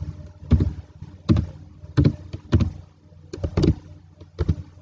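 Computer keyboard keys being typed: about ten irregular clacks, some in quick pairs, as a short word is typed.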